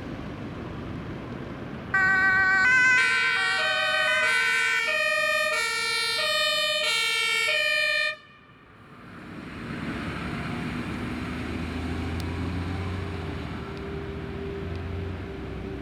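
German two-tone emergency vehicle siren (Martinshorn), switching between its two notes about every 0.7 seconds. It starts abruptly about two seconds in and cuts off suddenly about six seconds later, leaving traffic noise and a low engine rumble.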